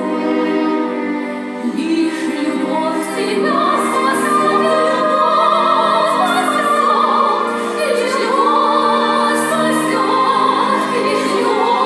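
Operatic-style singing with heavy vibrato over instrumental accompaniment; the voices come in about three seconds in, after a few seconds of the accompaniment alone.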